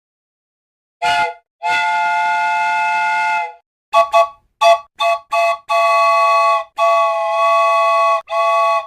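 Multi-note chime train whistle sounding a chord in a series of blasts: one short blast, a long blast of about two seconds, a quick run of short toots, then three longer blasts.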